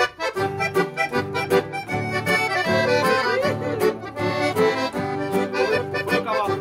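Instrumental passage of a gaúcho xote: accordion playing the melody in sustained chords over a steady, even rhythm accompaniment and bass.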